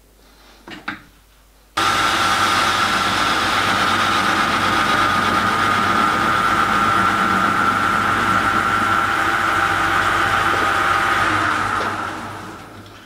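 Small metal lathe starting up about two seconds in and running steadily with a high whine, facing a cast-iron eccentric held in a three-jaw chuck; near the end it is switched off and spins down. Before it starts, a few light clicks of the chuck being set up.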